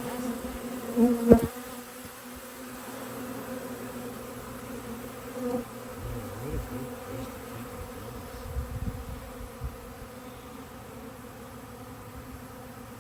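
Honeybees buzzing up close, a steady hum with a clear low pitch. A single sharp knock comes about a second in.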